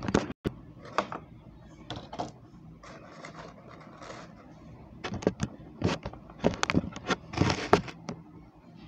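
A clear plastic blister tray being handled as a hair trimmer is taken out of it: scattered sharp plastic clicks, taps and crackles, coming thick and fast in the second half.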